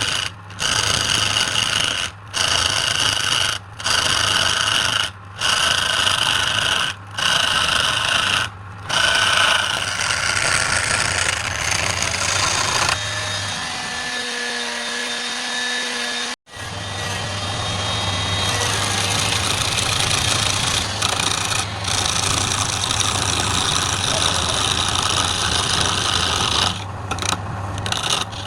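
Electric power tool running while working wood, a steady motor hum under a rough abrading noise. For the first several seconds it is chopped into short runs a second or two long by brief gaps.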